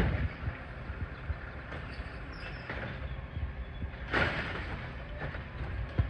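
Automated side-loader garbage truck with its engine running low and steady as the hydraulic arm lifts a wheeled trash bin, with a knock at the start and a louder clatter about four seconds in as the bin is tipped and emptied into the hopper.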